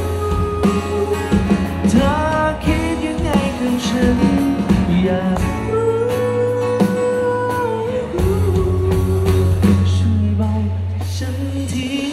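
Live acoustic band music: a strummed acoustic guitar and an electronic drum pad struck with sticks, under a singer's held and sliding notes.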